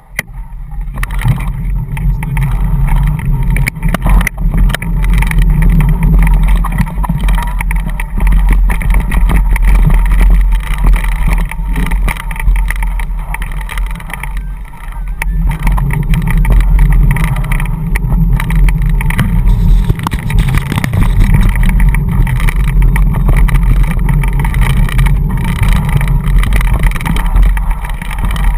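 Tufftrail dog scooter rolling fast behind a pulling dog: a loud, steady low rumble from the tyres and wind buffeting the handlebar-mounted microphone, with frequent small rattles and clicks from the frame. It picks up sharply at the start.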